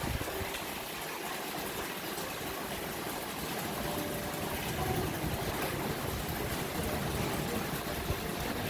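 Steady splashing of a thin stream of water pouring from a lion-head fountain spout into a tiled basin, with a low rumble coming in about halfway through.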